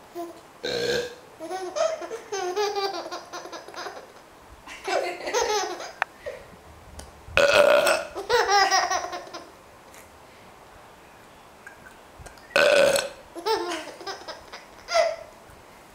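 Three loud burps, about six seconds apart, each followed by a run of giggling laughter from a small child.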